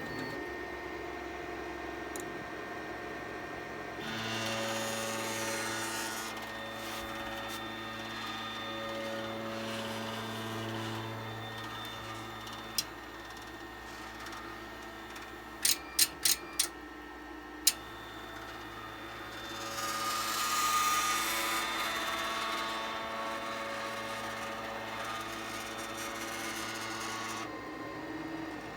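FLSun delta 3D printer running, its stepper motors humming steadily while the carriages move, with a handful of sharp clicks in the middle, a quick run of four among them.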